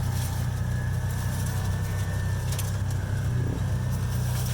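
Off-road vehicle's engine running at a steady low drone, with a sharp click or rattle about two and a half seconds in.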